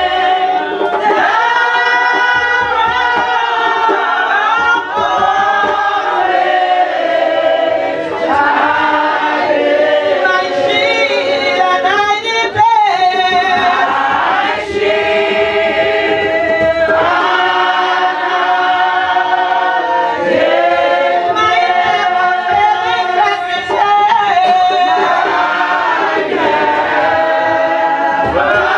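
Church congregation singing together in chorus, the lead voices amplified through hand microphones, continuous and at full voice.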